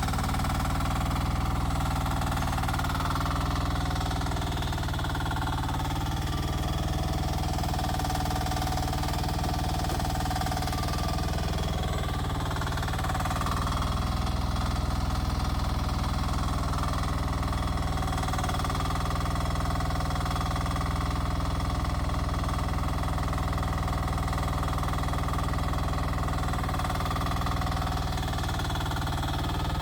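Rippa R10 mini excavator's engine running steadily, at an even level throughout.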